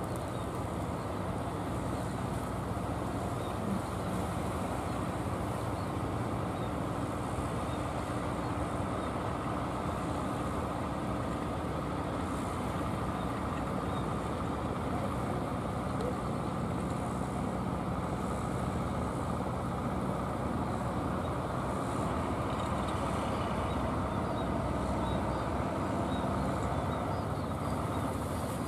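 Engines of wooden fishing boats running steadily as they motor in through the surf, a low even drone over the wash of waves.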